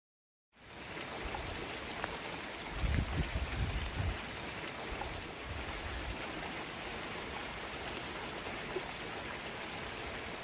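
Steady outdoor hiss that starts suddenly about half a second in, with a few low rumbles around three to four seconds in and again near five to six seconds.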